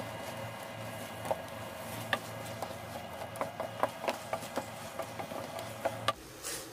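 Wooden spatula stirring drumstick pieces, tomato and onion in a non-stick frying pan, giving irregular quick knocks and scrapes against the pan, over a steady low hum that stops about six seconds in.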